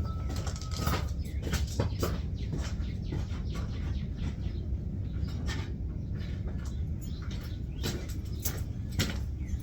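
Irregular metallic clicks and scrapes of a screwdriver working at a stuck part of the steering linkage during an idler arm install, over a steady low background rumble.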